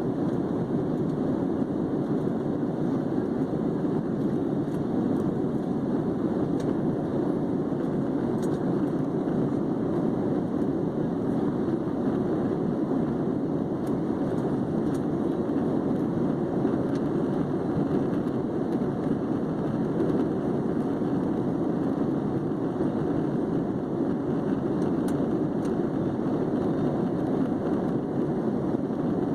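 Airliner cabin noise in flight: a steady, even rush of jet engines and airflow heard from inside the passenger cabin.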